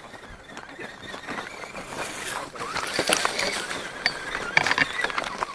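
RC rock crawler driving over loose rocks and through dry brush: a small motor and drivetrain whirring, with stones clattering and knocking under the tyres. It grows louder about two seconds in, with sharp knocks near the middle and toward the end.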